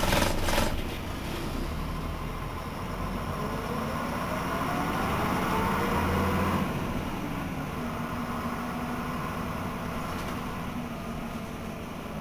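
Berliet PR100 MI city bus with its MIPS diesel engine and five-speed manual gearbox, pulling away under load. A brief loud hiss comes at the start. A rising whine climbs in pitch and grows louder for a few seconds, then drops off about six and a half seconds in at a gear change. After that the bus runs on at a lower, steady pitch.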